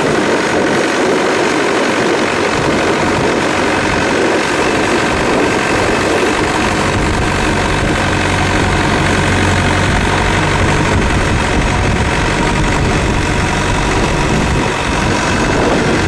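Thai longtail boat's engine running steadily while under way, a steady engine note over a constant rushing noise.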